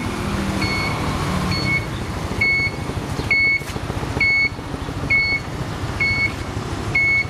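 Honda CB125T's turn-signal beeper giving a short high beep a little more often than once a second as the indicators flash, over the steady idle of the bike's parallel-twin engine.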